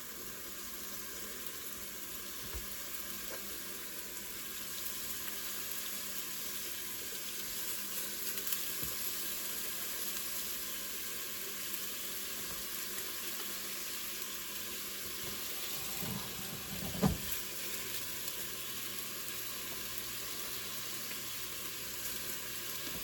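Meatballs frying in hot oil in a pot, a steady sizzle. One sharp knock stands out about three quarters of the way through.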